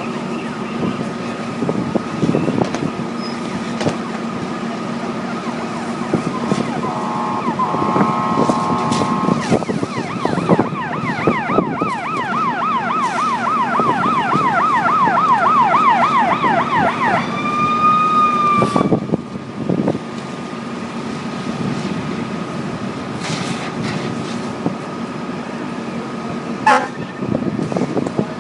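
An emergency vehicle siren yelps rapidly for several seconds from about a third of the way in, after a held horn-like blast, and ends in a short steady tone. Near the end comes a brief falling siren blip. Underneath runs a steady engine drone.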